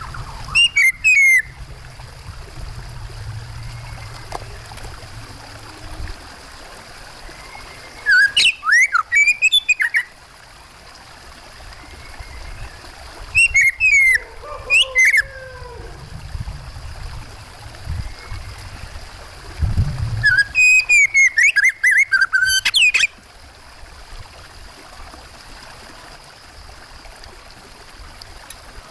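Oriental magpie-robin (kacer) singing in four loud bursts of quick, varied whistles and chirps, over the steady trickling of running water.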